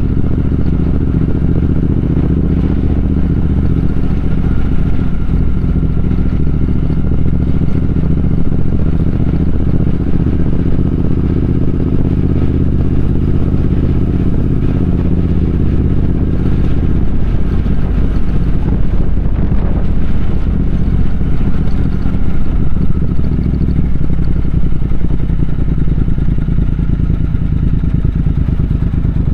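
Triumph Speed Twin 1200's parallel-twin engine running steadily on the move, its pitch shifting several times as the throttle and gears change.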